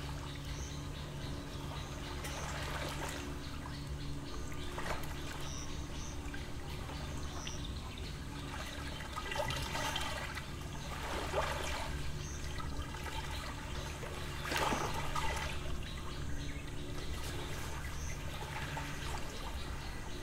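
Small lake waves lapping and splashing against the shore in soft, irregular swells, with faint high bird chirps and a low steady hum underneath.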